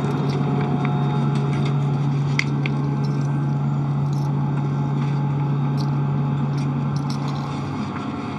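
Steady drone of the International Space Station's cabin fans and life-support machinery, a constant low hum under a noise-like rush, with a few light clicks and knocks from handling as she moves through the hatch.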